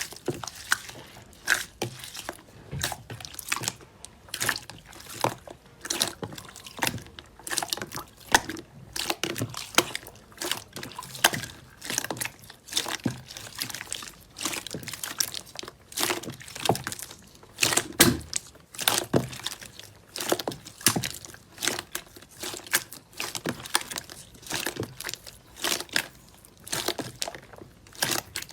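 Slime being squeezed, stretched and pressed by hand, making a dense, irregular run of wet squishing clicks and pops.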